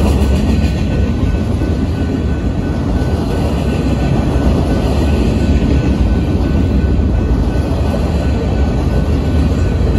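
Freight train of flatcars loaded with steel pipe rolling past on the rails: a steady low rumble of wheels and cars that does not let up.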